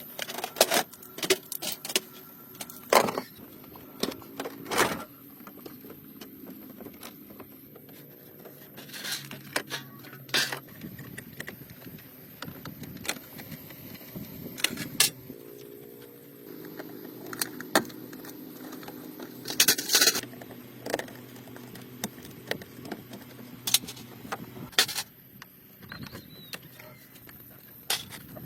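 Metallic clinks, taps and knocks of hand tools working on car parts, irregular and scattered. A steady low hum runs for several seconds in the middle.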